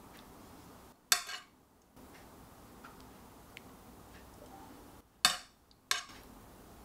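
A metal spoon knocking against a ceramic plate while glaze is spooned over the chicken: three short clinks, one about a second in and two close together near the end, over faint room tone.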